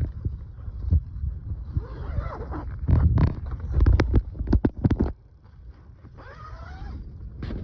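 Wind buffeting the microphone in gusts, with scattered knocks and rustling from the tent being handled and opened; it eases off about five seconds in.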